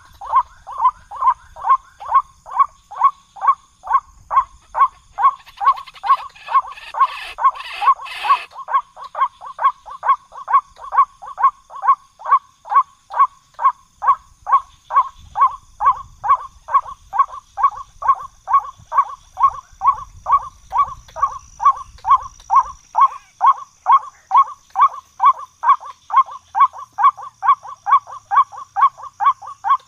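White-breasted waterhen calling: one short note repeated steadily about two and a half times a second, turning rougher and harsher for a couple of seconds about six seconds in. This is the waterhen call used as a hunting lure.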